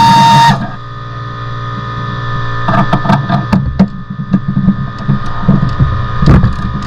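A loud, steady mechanical whine cuts off about half a second in. A run of irregular metallic clicks and knocks follows, from hand tools and bolts being worked on the car's transmission mount.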